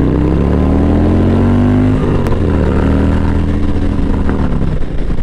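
Harley-Davidson Dyna Fat Bob's V-twin engine accelerating under the rider. Its pitch climbs, drops once about two seconds in as at an upshift, climbs again, then eases off near the end.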